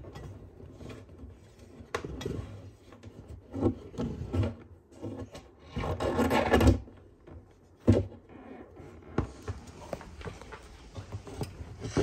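Sulcata tortoise scraping and knocking its shell against a plywood wall: irregular scrapes with a few sharp knocks, the longest and loudest scrape about six seconds in.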